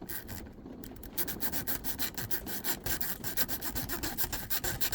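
A zip tie raked rapidly in and out of the keyway of an M&C Condor lock: a fast run of scratchy clicks as it scrubs over the pins, starting about a second in.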